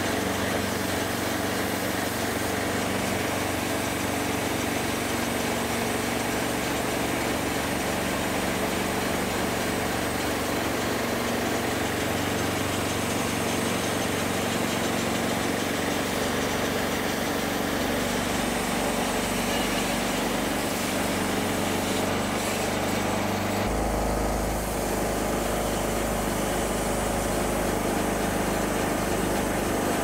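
Portable bandsaw mill's small gasoline engine running steadily under load while the band blade cuts through a birch log. About three-quarters of the way through, the low hum of the sound becomes deeper and stronger.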